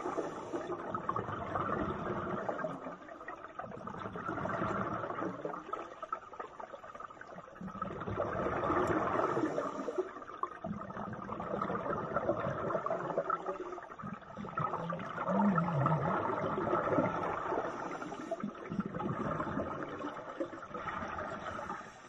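Underwater bubbling and rushing from scuba divers' exhaled air in a swimming pool, heard with the microphone under water, swelling and fading every three to four seconds with each breath.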